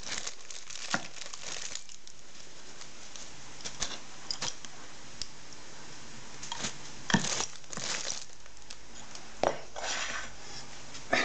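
Plastic bag liner and wrapper rubbish crinkling and rustling in short, irregular bursts as rubbish is handled in a plastic bucket, with a few light clicks and knocks.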